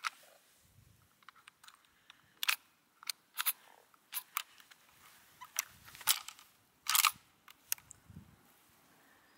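Footsteps crunching in snow: a run of sharp, irregular crunches about half a second to a second apart, with a few dull thuds underneath.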